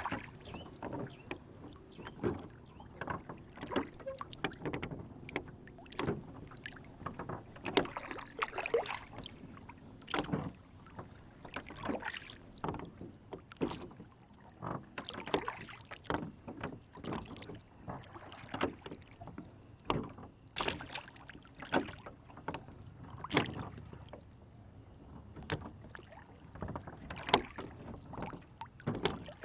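Rowboat on a lake: water lapping and slapping against the hull, with many irregular short knocks and splashes as the boat rocks.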